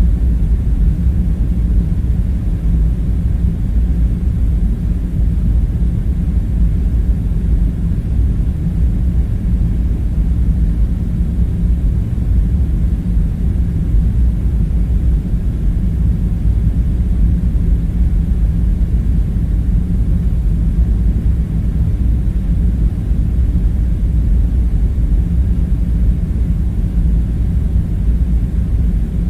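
Steady, loud low rumbling drone of a room-ambience background, even throughout with no distinct events.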